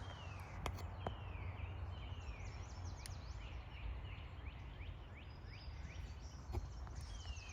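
Songbirds calling: many short whistled notes, each sliding downward, repeated over and over. A low steady rumble and a few light clicks sit underneath.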